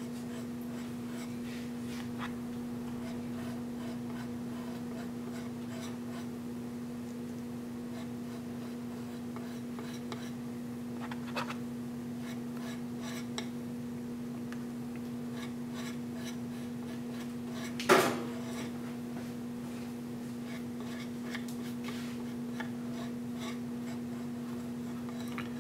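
Palette knife scraping and dabbing thick acrylic paint onto a small wooden panel: faint, scattered scrapes and taps, with one sharper knock about 18 seconds in. Beneath them runs a steady low hum.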